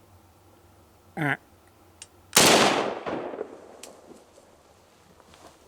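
A single deer-rifle shot, sharp and loud, with its report rolling away over about a second. About a second before it, a short voice-like call.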